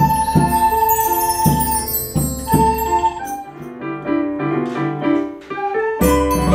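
A children's ensemble playing recorders with a keyboard, while bar chimes are swept by hand at the start, their shimmer falling in pitch over about three seconds. About halfway through the playing thins out to quieter separate keyboard notes.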